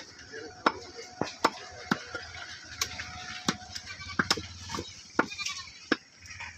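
Cleavers chopping goat meat and bone on wooden stump chopping blocks: about a dozen sharp, irregular strikes from two butchers working at once.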